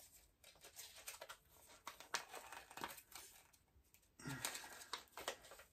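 Faint crinkling and rustling of packaging being handled, a scatter of small crackles, growing louder for about a second around four seconds in.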